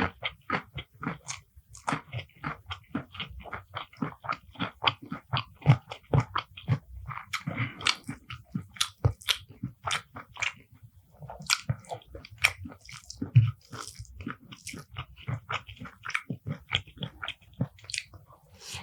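Close-miked chewing of a meal of beef curry and rice, a quick run of crisp crunches and wet chews several times a second, the crunches typical of raw vegetables such as cucumber, onion or chilli.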